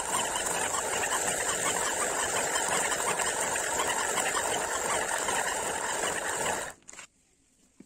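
Granite hand quern (jata) turning, the upper stone grinding over the lower one and cracking mung beans to loosen their husks: a steady gritty rasp that cuts off abruptly near the end.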